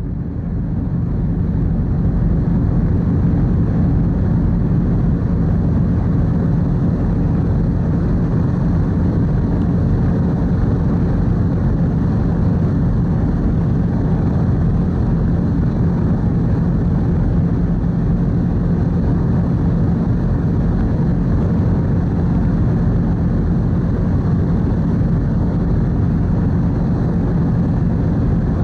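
Steady low drone of the car ferry Kuniga's engines, heard aboard, with a faint steady hum running through it; it swells up over the first couple of seconds and then holds even.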